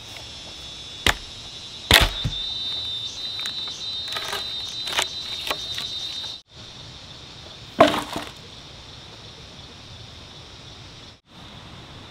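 A few single sharp knocks, about 1, 2 and 8 seconds in, over steady hiss, with a steady high insect-like whine between about 2 and 6 seconds.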